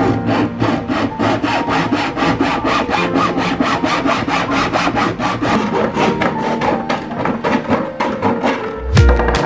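Hand hacksaw cutting through the wall of a large plastic water-dispenser jug, in rapid, even back-and-forth strokes. The sawing stops near the end with a low thump.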